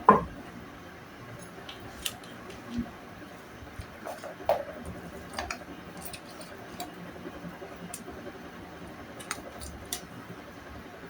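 Scattered clinks and knocks of a spoon against a plate and food container as beans are served onto rice, with one louder knock right at the start.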